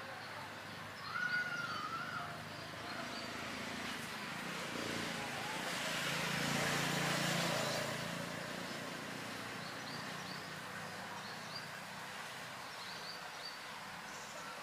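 Outdoor background of small birds chirping, with a short wavering call about a second in and a low rumble that swells and fades in the middle.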